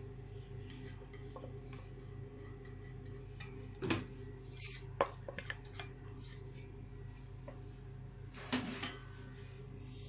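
A few scattered knocks and clinks of a mixer jar and a glass bowl as freshly ground bread crumbs are emptied out, over a steady low hum. The loudest knocks come about 4 s in and again near 8.5 s.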